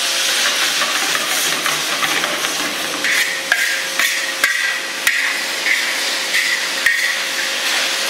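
Stir-frying in a steel wok over a gas burner: a steady sizzle with scraping and several sharp knocks of a metal spatula against the wok.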